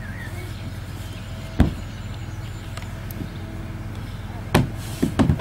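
A few short, sharp knocks over a steady low rumble: one about a second and a half in, then a quick cluster near the end.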